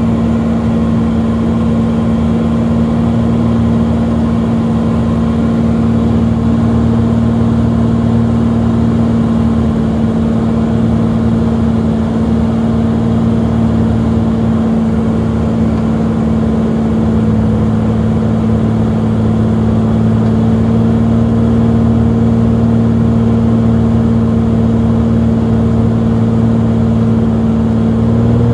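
A Cirrus single-engine propeller plane's piston engine and propeller droning steadily at approach power on final for landing, heard from inside the cabin.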